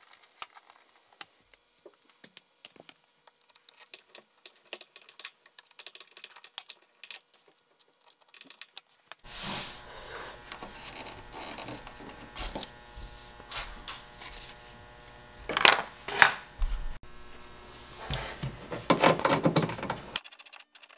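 Scattered small clicks and rattles of hand tools working screws and plastic clips on a car's side skirt. About nine seconds in, a steady hum starts, with several louder bursts of clatter.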